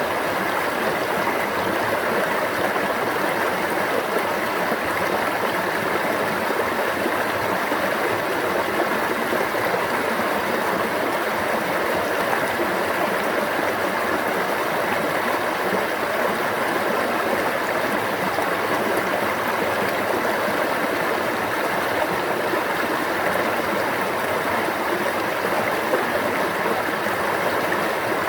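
Running stream water, a steady, unbroken babble.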